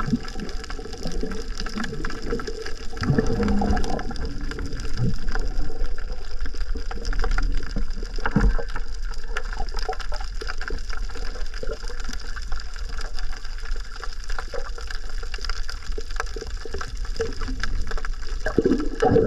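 Muffled underwater sound picked up by a submerged camera: a steady low rumble of water with swishing and gurgling, and a few stronger swirls and knocks about 3 seconds in, around 8 seconds in and near the end.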